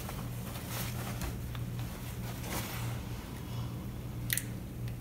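Steady low hum with faint scattered rubbing and handling sounds, and one short, sharp scrape about four seconds in.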